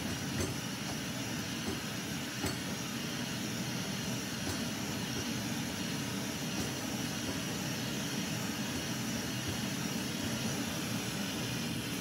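Coleman 533 Dual Fuel stove burning at full with a steady rushing hiss from its pressurised burner, while the generator tube is still heating up and the flame is only starting to turn blue. A few faint clicks in the first few seconds.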